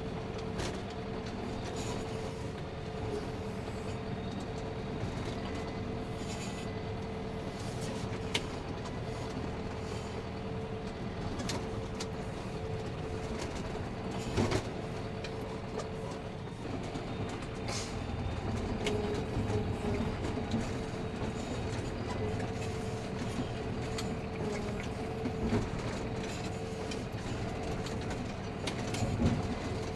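John Deere tractor's diesel engine running steadily under load while pushing a front-mounted snow plow through fresh snow, with a few short sharp knocks and clanks.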